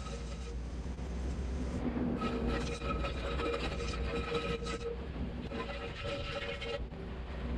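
Kubota SVL90-2 skid steer running steadily: a low diesel rumble with a high hydraulic whine that cuts out and comes back every second or two as the machine works.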